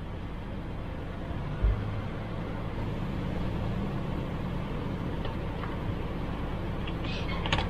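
Steady low background hum, with a dull thump about one and a half seconds in and a few light clicks near the end as wiring and the plastic lower dash trim panel are handled.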